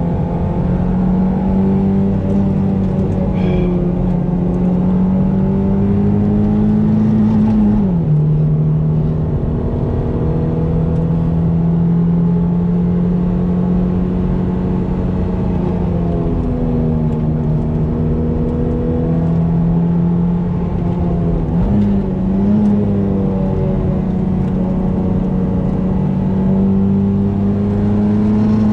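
Toyota MR2's engine pulling hard under load at speed, heard from inside the cabin over steady road noise. Its pitch holds or climbs slowly, then drops sharply about eight seconds in, and dips twice more later on.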